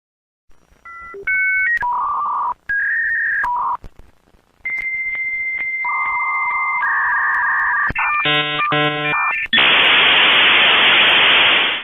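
Dial-up modem connecting over a phone line. Short paired dialing tones and a few steady beeps come first. Then a long high answer tone with faint regular clicks, a warbling buzz, and about two seconds of loud hiss as the handshake completes.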